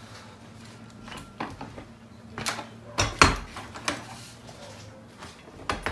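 Knocks and clunks from handling a gaming-chair seat with its metal underframe as it is lifted and shifted during assembly: about half a dozen sharp knocks spread out, the loudest pair about three seconds in with a low thud.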